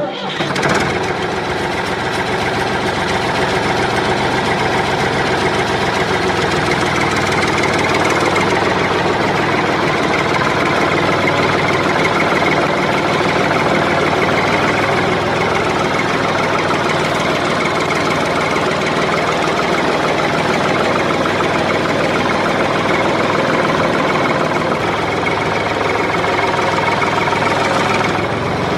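Tractor engine running steadily without revving.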